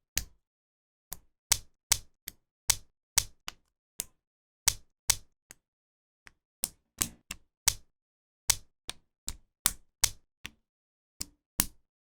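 LEGO Technic plastic parts clicking and snapping together during assembly: a quick, uneven run of sharp clicks, with a couple of short pauses, and dead silence between clicks.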